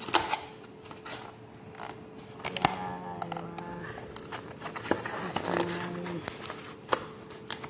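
Foil food tray and its lid handled on a stone countertop: scattered crinkles, clicks and scrapes. A faint steady hum runs underneath, and two short pitched tones sound about three and five and a half seconds in.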